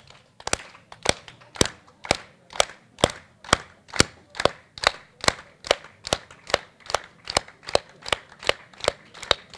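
Hands clapping in an even rhythm, about two claps a second, gradually speeding up.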